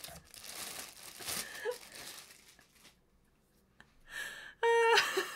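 Thin clear plastic wrapping crinkling and tearing as it is pulled off a spatula, then a pause. Near the end, a woman gives a brief pitched vocal exclamation, the loudest sound here.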